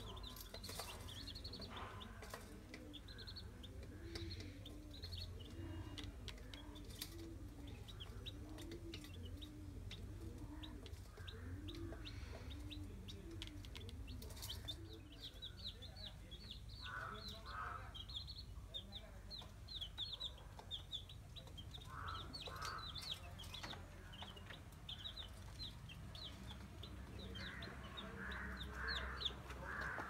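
Baby chicks peeping, a stream of short high cheeps that grows thick and rapid from about halfway through. Low, repeated clucking sounds under it in the first half, and a few louder calls come in the second half.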